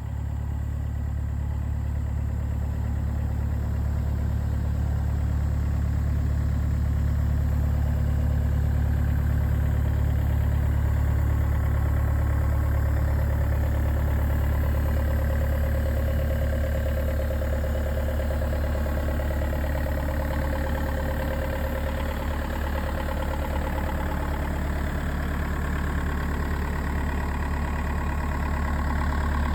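A 2005 John Deere 50D excavator's diesel engine idling steadily, with a low, even hum.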